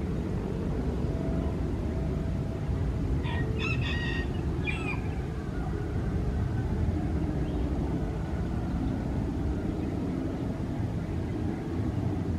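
A rooster crows once, about three seconds in, over a steady low rumble.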